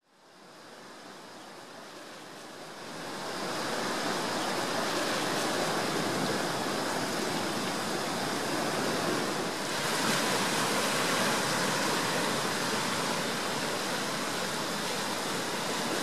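Surf breaking on a rocky shore: a steady rush of waves that fades in over the first three seconds and turns a little brighter about ten seconds in.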